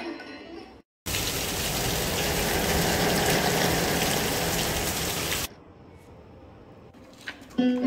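Heavy rain pouring down in a steady downpour that lasts about four seconds, then cuts off suddenly.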